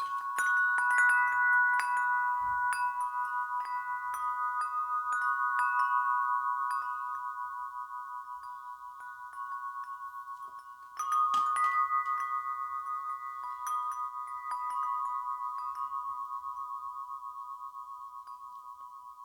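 Big wind chimes ringing in the breeze: a few clear tones that hang and fade slowly. A fresh cluster of strikes comes near the start and again about eleven seconds in.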